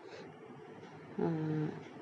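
Low background hiss, then about a second in a short held hum from a woman's voice, a hesitation sound between phrases.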